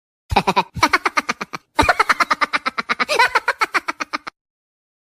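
Rapid, stuttering laugh sound effect in three bursts of fast staccato pulses, about ten a second: two short bursts, then a long one that stops about four seconds in.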